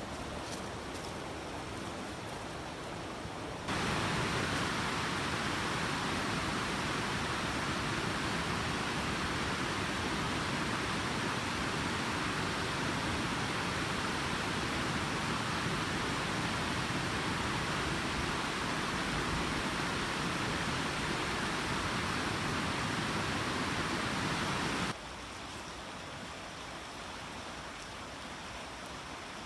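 Small creek running high with snowmelt: a steady rush of flowing water, which turns suddenly louder about four seconds in and drops back to a quieter rush near the end.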